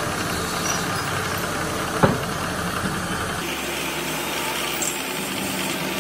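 Belt-driven electric buffing machine running steadily while a steel kingpin is held against its spinning polishing wheel, with a sharp click about two seconds in. A little past halfway the low hum drops away and the higher buffing noise comes forward.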